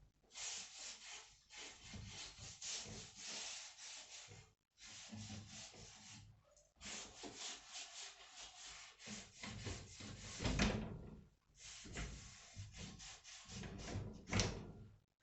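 Rapid, repeated rubbing strokes, like hand sanding or scraping a surface, broken by a few brief pauses. There are two louder knocks, about ten seconds in and again near the end.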